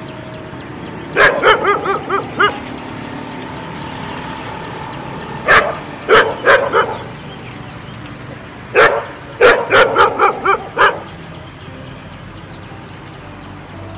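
A shepherd-type dog barking in three quick runs of four to seven sharp barks each: about a second in, around the middle, and again about two-thirds of the way through, over a steady background hiss.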